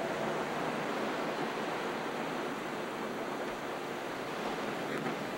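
A steady, even rushing noise with no pitch or rhythm, like surf or wind.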